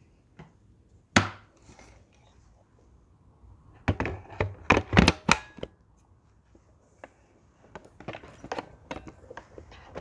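Knocks and clicks from an upright vacuum cleaner being handled while its motor is off: one sharp knock about a second in, a quick run of louder knocks midway, then scattered small clicks and crackles.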